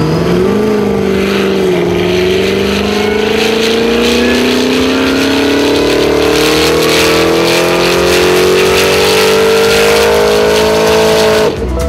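Cadillac XLR's Northstar V8 under load on a Dynapack hub dyno, its exhaust note climbing steadily in pitch through one long wide-open pull after a brief dip near the start, then cutting off sharply near the end.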